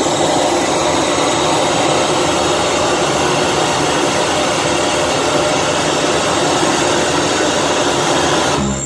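Live harsh noise electronics: a loud, dense, unbroken wall of distorted static from a tabletop setup of noise gear, which cuts out abruptly just before the end.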